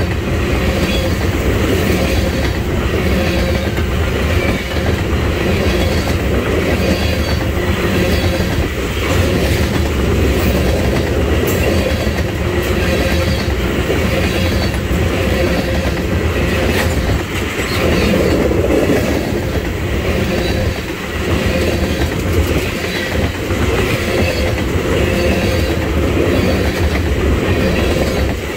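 Freight train tank cars rolling past close by: a steady, loud rumble of steel wheels on the rails, with scattered clicks from the wheels.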